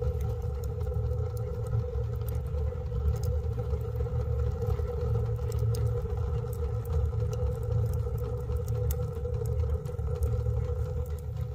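Fire burning in a small steel wood stove with a square flue: a steady low rumble of draft with a constant hum over it and scattered crackles.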